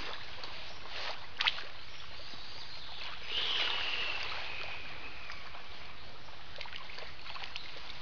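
Small lake waves lapping steadily against a pebble shore, with two light clicks about a second and a half in.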